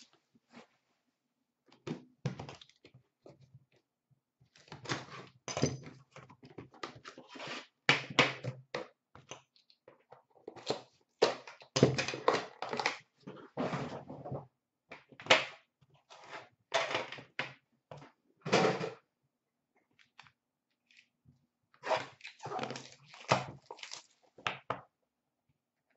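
Hands unwrapping a trading-card box: plastic shrink-wrap crinkling, and the cardboard box and metal tin being handled, in irregular bursts of rustling and knocks with two short pauses.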